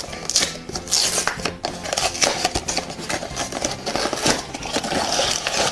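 Cardboard blind box being opened by hand: a string of crackles, scrapes and rustles as the flaps are pulled open and the packaging inside is handled.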